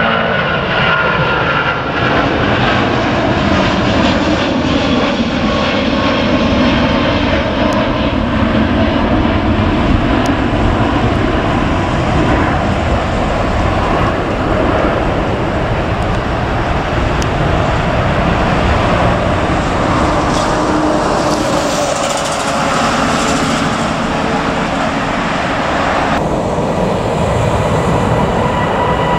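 Boeing 777-200ER's two Rolls-Royce Trent 892 jet engines at takeoff thrust as it climbs out past overhead: a steady loud roar, with whining tones sliding down in pitch in the first few seconds. About 26 seconds in it cuts to a Boeing 787-8's jet engines roaring as it lifts off.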